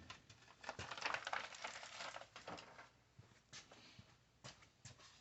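Rustling and light clicking of small parts being handled, busy at first and then a few separate clicks.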